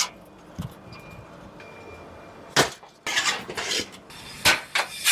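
Workshop metal parts knocking and clinking: a sharp knock, a short rasping burst, then two more quick knocks.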